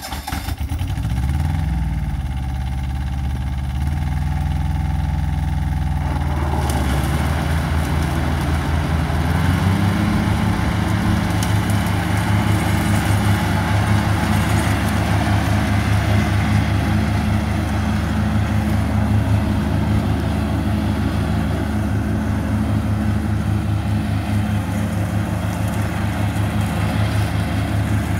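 Iseki SG15 ride-on mower's engine running just after starting, its speed rising over the first couple of seconds. About six seconds in a broader whirring noise joins, and around ten seconds in the engine speeds up again and then runs steadily as the mower drives across the grass.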